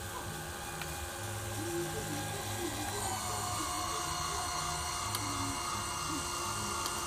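Electric drive motors and gearing of a homemade battery-powered bulldozer running with a steady mechanical whine. A stronger, higher whine comes in about three seconds in.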